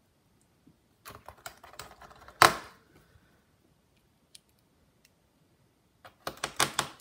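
Small metallic clicks and taps of a precision screwdriver and tiny screws being handled and driven into a MacBook Air's bottom panel. They come in a scattered cluster with one sharper click about two and a half seconds in, then a quiet gap, then a quick run of clicks near the end.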